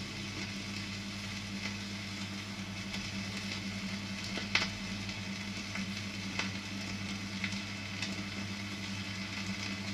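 Vinyl record surface noise as the turntable's stylus rides the run-out groove after the music has ended: steady crackle and hiss with a few louder clicks, over a low steady hum.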